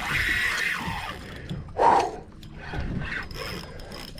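Spinning reel being cranked against a heavy fish, its gears giving a rough mechanical whirring and clicking. There is a short, louder burst about two seconds in.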